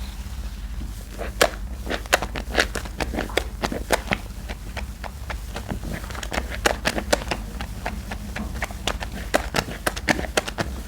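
Hands squishing and pressing thick laundry-detergent soap paste, giving an irregular run of sharp wet clicks and pops, several a second.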